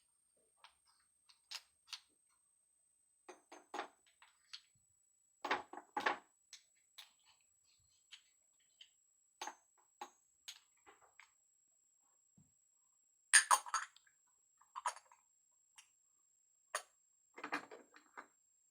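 Small plastic toys and doll accessories being handled and set down: scattered light clicks and knocks, with a louder clatter about two-thirds of the way through.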